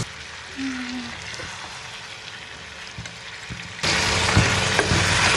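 Pieces of meat frying in oil in a steel kadai, with a metal spoon stirring and knocking against the pan. The sizzle comes in loud and suddenly about four seconds in, after a quieter stretch.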